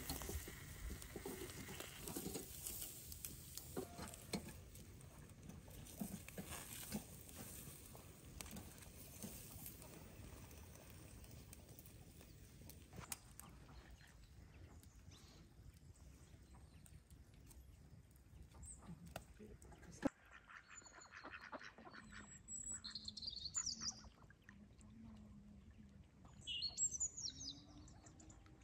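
Faint crackling and ticks from fish grilling over a charcoal fire. This gives way to birds calling by a pond, with a few high, warbling calls near the end.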